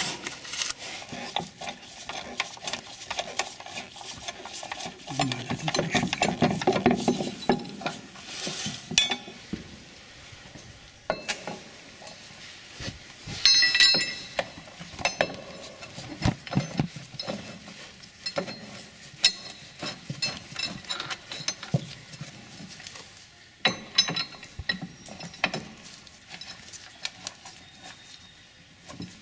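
Scattered clicks, taps and clinks of metal tow-hitch hardware handled by hand as the hitch sidearm nuts are fitted loosely onto the frame-rail bolts, with one sharper ringing metal clink about halfway through.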